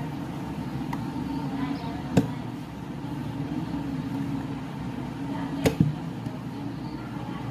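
Two sharp clicks about three and a half seconds apart, the second followed at once by a softer one, over a steady low hum.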